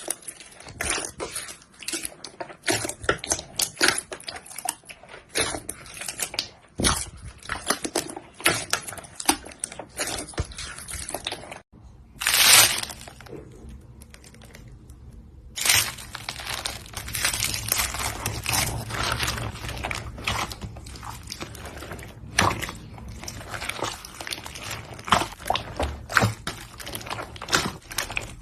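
Slime being squeezed and stretched by hand, a dense run of small crackles, pops and squelches. The sound breaks off abruptly about twelve seconds in and gives way to a louder wet rush. The crackling resumes a few seconds later.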